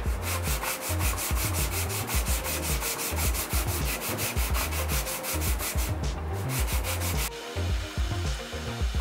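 Hand sanding: a wooden handplane part rubbed rapidly back and forth on a sheet of sandpaper, in even strokes about six a second, which stop about six seconds in.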